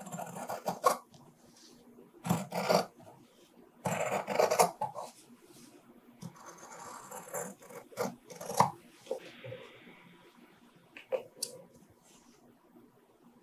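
Fabric shears cutting through fabric in several short runs of snips, each stroke a crisp crunching rasp, with pauses between the runs.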